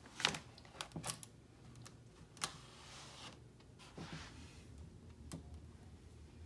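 Faint, scattered key clicks on a laptop keyboard, a child typing slowly one key at a time: a few quick presses about a second in, then single presses now and then.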